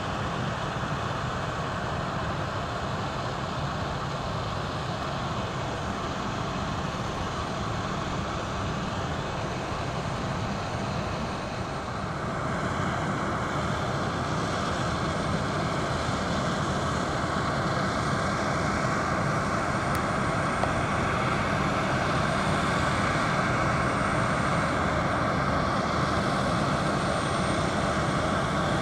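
Boeing 767-300ER jet on approach, heard from a distance as a steady rumble and hiss. It gets a little louder after about twelve seconds and keeps building slowly as the aircraft comes in.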